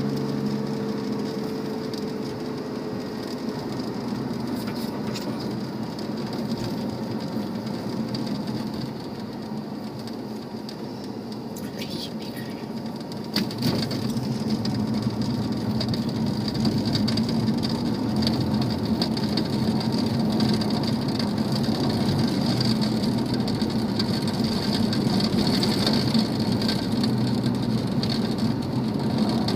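Steady running noise inside a Porsche 997's cabin, engine and road noise together, growing louder about 13 seconds in.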